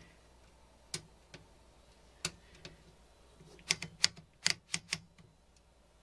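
Sharp mechanical clicks from the carriage of a 1950s Royal HH typewriter as a small lever by the right-hand platen knob is worked by hand. There are single clicks about a second in and just after two seconds, then a quicker run of clicks between about three and a half and five seconds in.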